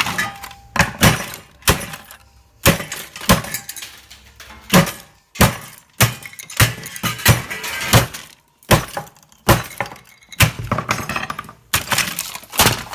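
Repeated hard blows, about twenty sharp bangs at an irregular pace of roughly two a second, some ringing briefly, as something is struck over and over.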